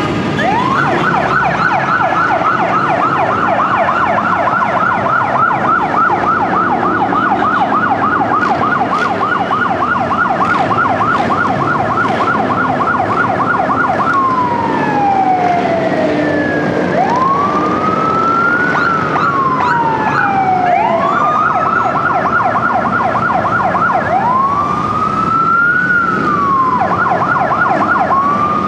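Electronic emergency-vehicle siren, first a rapid yelp for about fourteen seconds, then slow rising and falling wails alternating with short bursts of yelp. A fainter second siren sweeps briefly a little after the middle. Underneath is the steady sound of a column of motorcycle engines passing.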